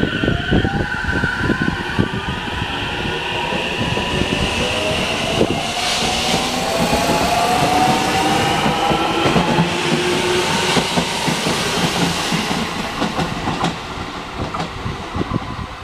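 JR Central electric train accelerating as it passes, its traction-motor whine rising slowly in pitch while the wheels click over the rail joints; it fades somewhat near the end as the train draws away.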